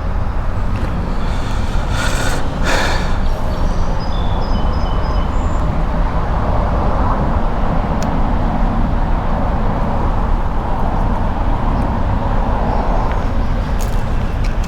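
Steady highway traffic noise: a constant rumble and tyre hiss, swelling louder from about six to thirteen seconds in as vehicles pass. A few sharp clicks sound in the first few seconds.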